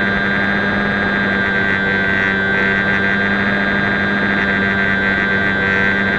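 A HobbyZone Champ RC plane's small electric motor and propeller running steadily at a constant pitch, with air rushing past, heard from a camera riding on the plane itself.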